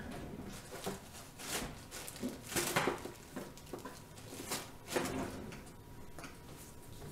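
Supplies being handled on a countertop: a few bursts of plastic rustling and light knocks, the loudest just under 3 seconds in, over a faint steady hum.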